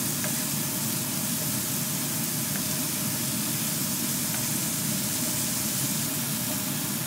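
Cubed chicken breast and garlic sizzling steadily in oil in a nonstick frying pan, with a few faint taps of a wooden utensil turning the pieces.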